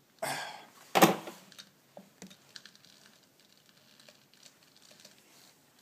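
A 73-year-old three-jaw scroll chuck on an Atlas lathe being tightened with its chuck key onto steel shims. Two sharp metal clanks come in the first second and a half, the second louder and ringing briefly, followed by a scatter of light clicks as the shims and jaws are handled.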